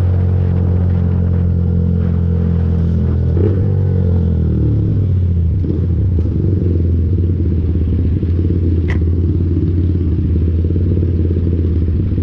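Lexmoto Viper 125's 125 cc single-cylinder engine running steadily under way. About three and a half seconds in the throttle is rolled off and its pitch falls, and it settles to a steady low running as the bike slows and pulls up at a red light. A brief high squeak comes about nine seconds in.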